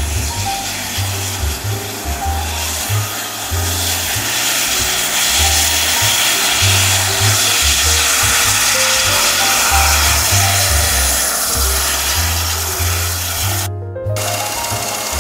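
Background music with a stepping bass line, laid over the steady rushing noise of a Carabinieri helicopter running on the ground with its rotor turning. The sound cuts out for a split second near the end.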